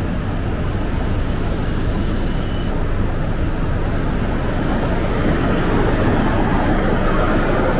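Shinkansen train (Tsubasa, E3 series) moving along a station platform, a steady running noise of wheels and motors that grows a little louder toward the end.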